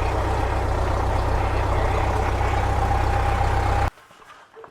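Cessna 172's Lycoming four-cylinder aircraft engine idling steadily just after a start, with oil pressure up. It cuts off abruptly near the end.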